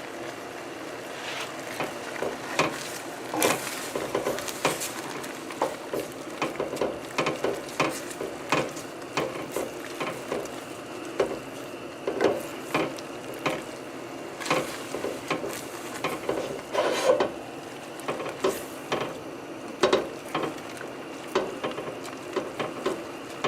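A utensil stirring and scraping in a pan of sauce cooking on the stove, with short irregular knocks against the pan, about one or two a second, over a steady sizzle.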